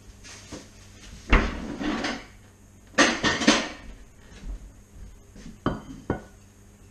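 Kitchen crockery and utensils being handled: a knock and rattle about a second in, a quick clatter of dishes about three seconds in, then two sharp ringing clinks near the end as a ceramic plate is set down on the counter.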